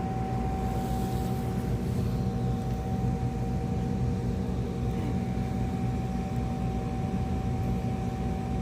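Steady mechanical hum with a constant high whine and a low rumble, unchanging throughout.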